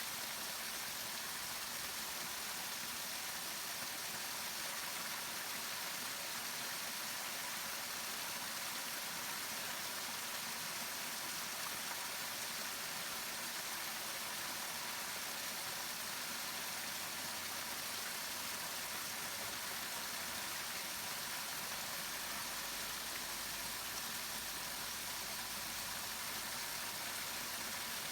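Waterfall rushing, a steady even hiss that holds at one level throughout.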